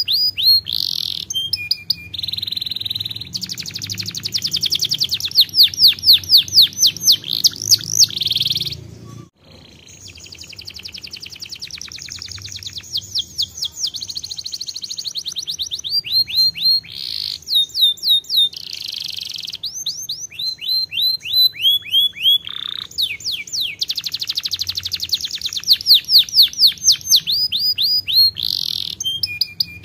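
Domestic canary singing a long song of rapid trills and runs of quickly repeated falling whistles, changing from one run to the next every few seconds, with a short break about nine seconds in.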